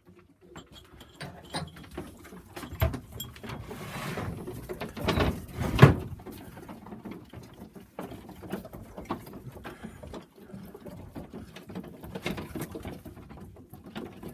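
Young pigeons moving about in their loft boxes: scattered light taps, scrapes and pecking sounds, with a louder cluster of knocks and scuffling about five to six seconds in.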